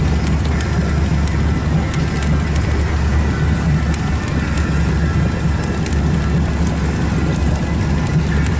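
Boat's outboard motor running with a steady low drone.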